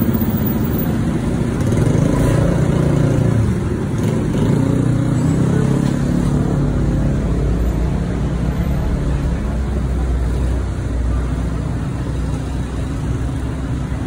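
Busy street traffic: motor scooters and other road vehicles running and passing, a steady low engine rumble with engine notes rising and falling in the first few seconds.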